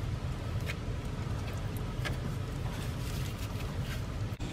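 A steady low background rumble, with a few faint scrapes and taps of a putty knife spreading wet sand-and-cement mortar over a form.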